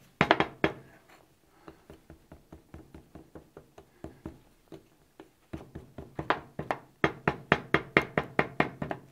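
Rapid, rhythmic knocking, about five knocks a second, as a lump of modeling clay is rolled back and forth by hand on a wooden board lying on a steel surface, with the board knocking against the steel. The knocks grow faint and sparse for a few seconds in the middle, then come back loud and regular.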